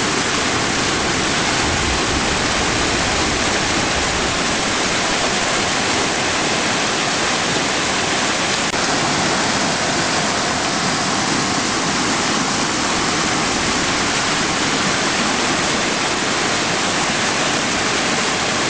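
Swollen, flood-brown mountain brook rushing and churning over rocks in whitewater rapids: a steady, loud, unbroken rush of water.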